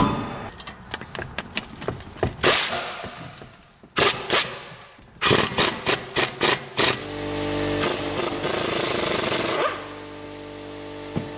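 Air tool rattling in short bursts, with metal clinks, as the 12 mm bolts holding the parking-brake cable bracket come off a rear brake caliper. About seven seconds in, a steady mechanical whir takes over for a few seconds, then drops to a lower steady hum.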